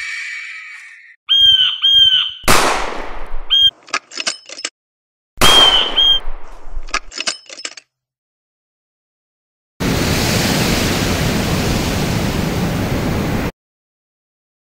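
Sound effects from a claymation soundtrack: a few short chirping tones, then two sharp bangs a few seconds apart, each followed by scattered clicks. After a pause comes about four seconds of steady hiss that starts and cuts off abruptly.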